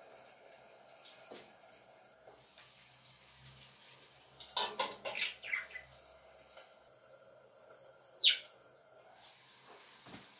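Bird chirps: a quick cluster of short downward-sliding chirps about halfway through, then one loud, sharp downward-sweeping chirp a little after eight seconds. Under them is a faint steady hiss of zucchini frying in a covered pan.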